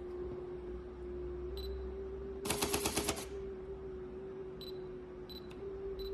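Olympus OM-D E-M10 Mark III camera body, damaged in a fall, giving off a continuous motor-like whine: an abnormal noise that marks the fault. About two and a half seconds in comes a burst of rapid clicking, under a second long, and a few faint single ticks are scattered around it.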